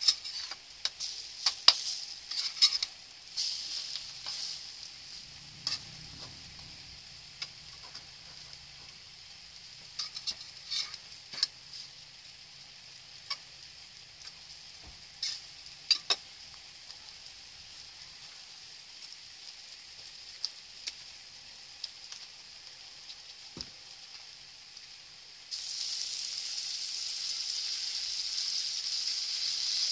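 Egg-dipped bread slices frying in margarine in a metal wok: a steady sizzle, with sharp clicks and scrapes of a metal spatula against the wok as the slices are turned, mostly in the first half. About 25 seconds in the sizzle gets suddenly louder.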